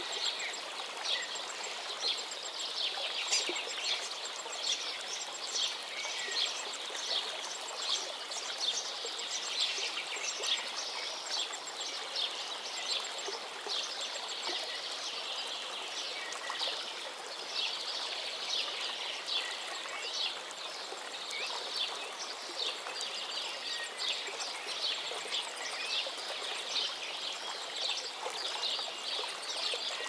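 Mountain stream flowing over rocks: a steady splashing, bubbling water sound with no break. Small birds chirp faintly now and then over it.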